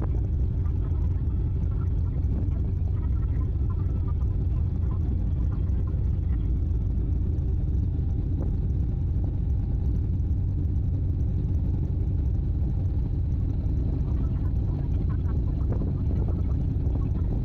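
Steady low rumble of a sightseeing icebreaker ship's engines, heard from on board, with faint voices in the background.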